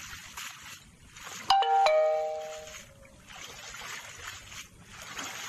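Water sloshing and dripping from a cast net as it is hauled out of shallow river water. About one and a half seconds in, a two-note ding-dong chime sounds, a higher note then a lower one, ringing out for about a second; it is the loudest sound.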